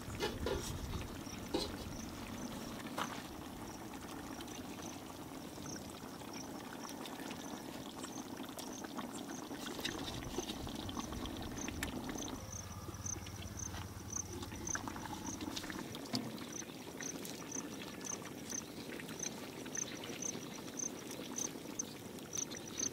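Thick fish curry bubbling and simmering in a large pot over a wood fire, with a few sharp clicks in the first few seconds. An insect chirps steadily, about two to three times a second.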